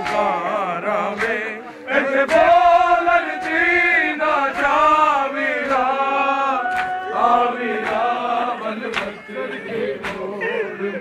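A group of men chanting a noha, a Shia lament, in unison with long held and bending notes. Sharp slaps of chest-beating (matam) land about once a second in time with it.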